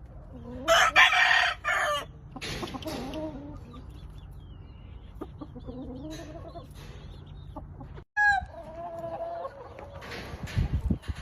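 Game chickens in their pens: a rooster crows loudly about a second in, and other birds keep up clucking and gliding calls.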